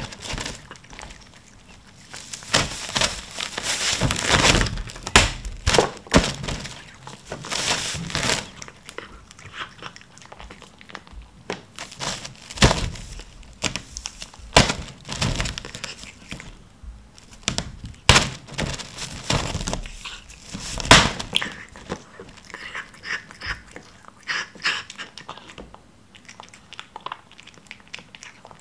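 Clear plastic wrap crinkling and rustling in irregular bursts as a cat pushes and claws through it, with the cat biting and chewing a piece of tuna. The loudest clusters are in the first third and the middle, and it is softer near the end.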